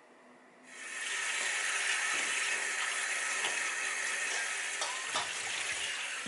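Kitchen tap turned on about a second in and running steadily onto soaked dried seaweed in a bowl in a stainless-steel sink, with splashing as the seaweed is rinsed and squeezed by hand.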